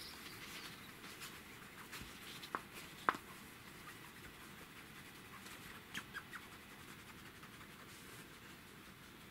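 Faint rustling of a satin sheet as a cat plays on it and paws at the cloth, with a few sharp clicks, a pair about two and a half to three seconds in and a small cluster around six seconds.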